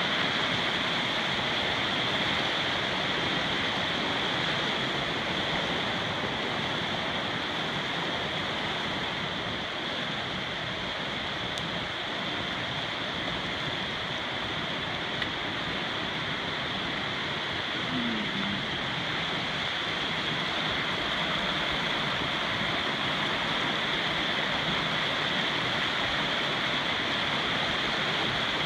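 Fast-flowing creek running high and muddy with rain: a steady, even rush of water.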